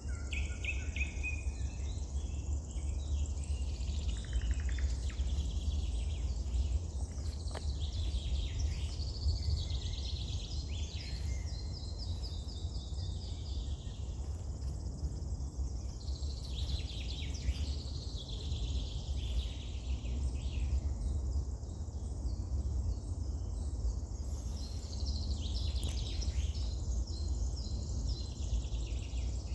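Wild songbirds singing and calling: many short chirps and trills, overlapping, high in pitch, over a steady low rumble.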